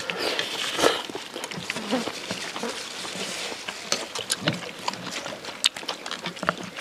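Several people eating noodle soup from ceramic bowls: scattered light clicks of chopsticks against the bowls and slurping of noodles.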